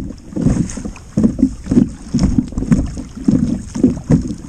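Choppy water slapping against the hull of a small kayak in irregular low thuds, two or three a second, with wind buffeting the microphone.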